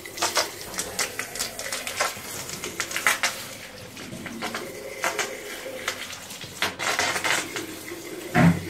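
Water running from a hose into the cell openings of an old lead-acid battery to wash out the cells, with many light clatters and knocks against the plastic case. There is a louder thump near the end.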